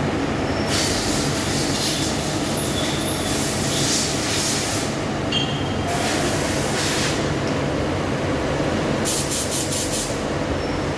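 CNC lathe running through a turning operation: a steady machine drone with spells of high hiss, starting about a second in, again around six seconds in, and as a run of quick pulses around nine seconds in.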